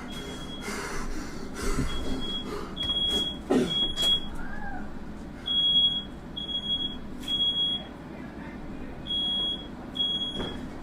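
Smoke alarm sounding, its high-pitched beeps coming in repeated groups of three with short pauses between the groups, set off by smoke from a firework lit in the room.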